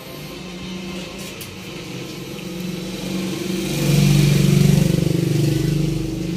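An engine running, growing louder to a peak about four seconds in, then easing off a little.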